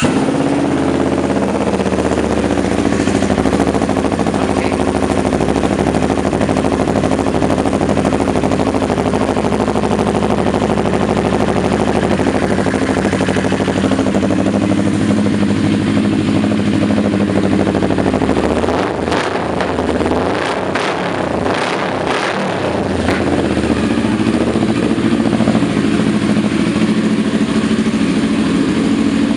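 CFMoto 400NK parallel-twin engine, just started, idling through an open aftermarket slip-on exhaust with the baffle removed. About two-thirds of the way through, the note breaks up briefly with a few sharp cracks before settling back to a steady idle.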